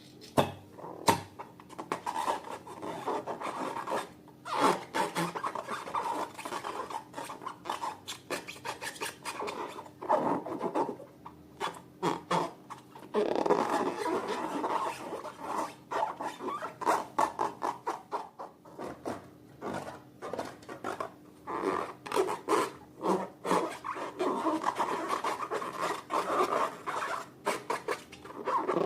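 Slime being squeezed, stretched and kneaded by hand: a continuous wet, rubbing squish broken by many small sharp clicks and pops.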